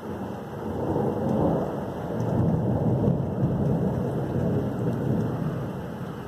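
Thunder rumbling: a long, low rolling peal that builds over the first second or two, then slowly dies away.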